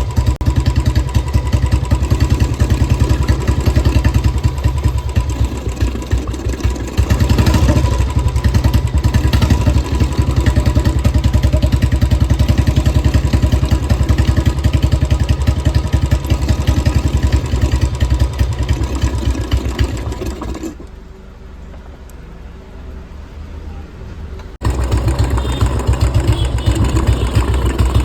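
Royal Enfield Bullet 350 single-cylinder four-stroke engine running with its steady, rapid thump. Near the end the engine sound drops away for about four seconds, then cuts back in abruptly.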